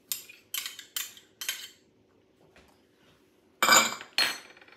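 A spoon tapping four quick times against a small prep bowl, knocking minced garlic into the pan, then two louder ringing clinks of small glass prep bowls on the counter about three and a half seconds in.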